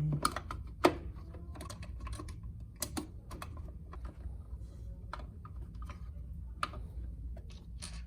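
Irregular clicks and light knocks of a plastic exercise-bike console being handled and fitted back onto its frame, the sharpest click just under a second in.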